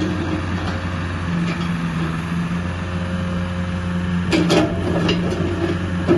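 Kubota KX151 excavator's four-cylinder Kubota diesel engine running steadily, with a few sharp knocks about four and a half seconds in and another at the end.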